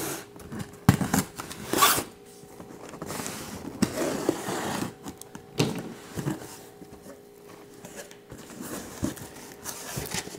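Hands opening a cardboard package: tearing, scraping and rustling of cardboard and packing in irregular bursts, with a few sharp clicks.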